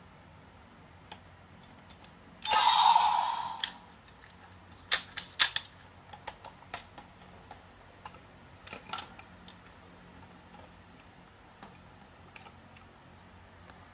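Plastic toy parts of a DX Wonder Ride Book and transformation-belt toy clicking and snapping as they are handled, with a quick run of sharp clicks a few seconds in and lighter clicks after. Before that, about two and a half seconds in, a loud noisy burst lasts about a second.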